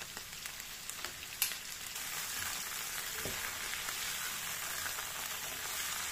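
Mushrooms, onion and red spinach stems frying in a nonstick wok: a steady sizzle that grows fuller about two seconds in, with a few light clicks in the first second and a half as the stems go in and are stirred with a silicone spatula.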